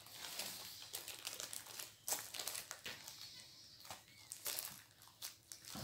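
Heavily taped packaging crinkling and crackling in irregular rustles as it is pulled at by hand to force it open.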